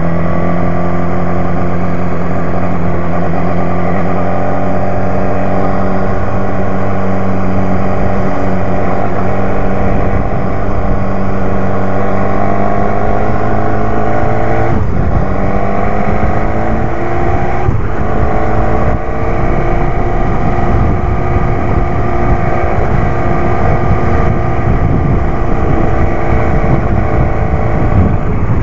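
BMW S1000R's inline-four engine running under way, its pitch climbing slowly as the bike accelerates. The note dips briefly twice, about 15 and 18 seconds in, then holds steady.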